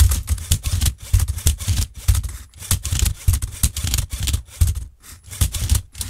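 LEGO Technic robot at work: its motors and plastic gears drive the flipper arm and turntable, with a fast irregular run of clicks, knocks and plastic clatter as the Rubik's speed cube is flipped and its faces turned.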